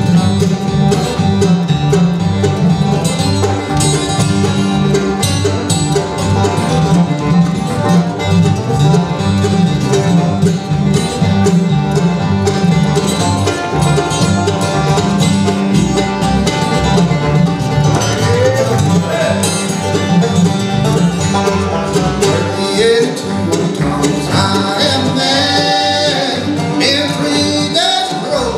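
Bluegrass band playing: banjo, acoustic guitar, mandolin and upright bass, over a steady, pulsing bass line.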